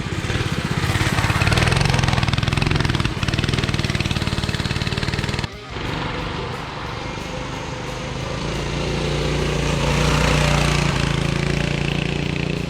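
Minibike's Tillotson 212cc single-cylinder four-stroke engine running hard under load, its speed rising and falling. The sound cuts out briefly about five and a half seconds in.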